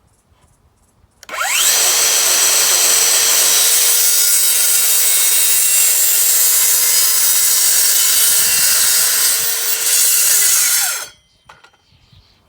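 Dewalt DCS575 54V FlexVolt cordless circular saw, fitted with an old 36-tooth blade, spinning up about a second in and making a test cut for about ten seconds at a steady pitch. Near the end it winds down with a falling whine.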